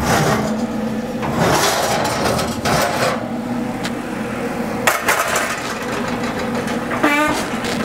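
Oven door opening and a cast iron pizza pan scraping out of the oven and being set down on the electric range's coil burner, a sharp clank about five seconds in, with clattering and a steady low hum throughout.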